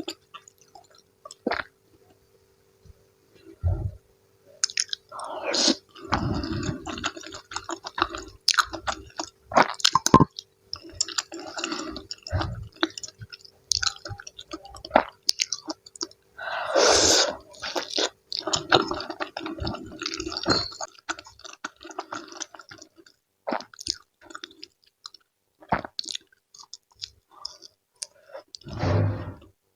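Close-miked eating sounds: wet chewing and mouth noises over sayur asem and fried tempeh, with clicks and crackles, mostly packed between about five and twenty seconds in, and a louder rush of noise around the middle. A faint steady hum runs underneath.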